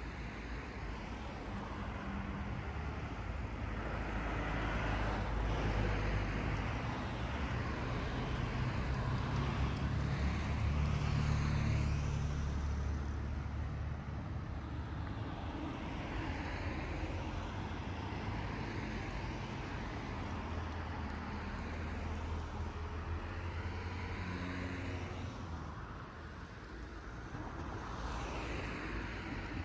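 Road traffic going by: car engines and tyres as a steady low rumble, swelling loudest about a third of the way through as a vehicle passes, then easing off.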